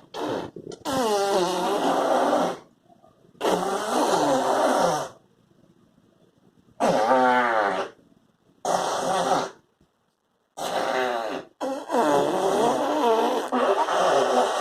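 A series of about seven drawn-out fart noises with short pauses between them, each lasting one to three seconds, the pitch wavering up and down.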